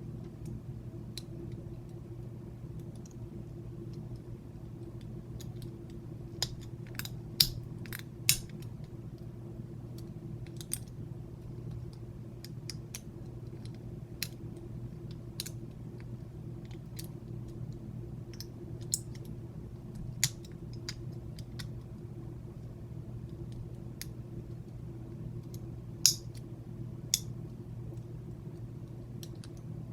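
Irregular sharp metallic clicks of a lock pick and tension wrench working the pins of a Master Lock Pro Series 6321 padlock during single-pin picking, over a steady low hum.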